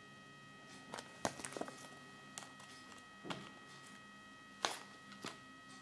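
A handful of short clicks and taps as a small plastic toy figure and its paper leaflet are handled and set on a wooden tabletop, the loudest about a second in and near the end, over a faint steady electrical whine.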